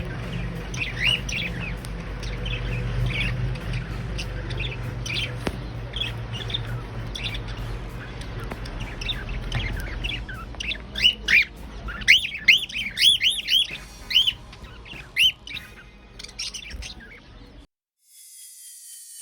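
Pet cockatiels chirping and squawking in short repeated calls, with a quick run of calls about two-thirds of the way through, over a low steady hum. The bird calls cut off suddenly near the end.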